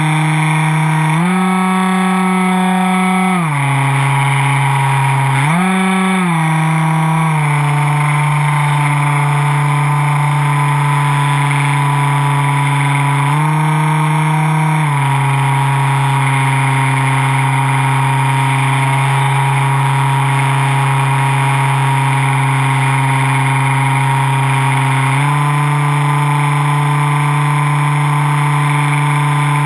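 Electric motor and propeller of a foam RC plane, heard from on board: a steady hum with a ladder of overtones, over a constant hiss. Its pitch steps up and back down as the throttle changes: about a second in, briefly near six seconds, again around thirteen seconds, and from about twenty-five seconds on it stays at the higher pitch.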